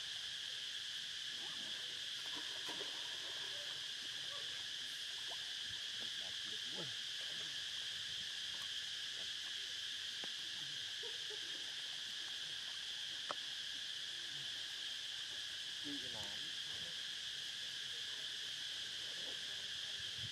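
Steady, high-pitched insect chorus droning without a break, with faint scattered sounds beneath it and a single sharp click about thirteen seconds in.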